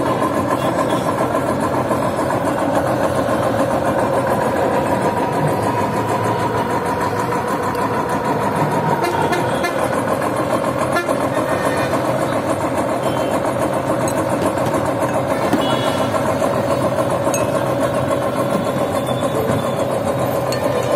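Motor-driven sugarcane juice roller press running steadily, its steel rollers turning as cane is crushed.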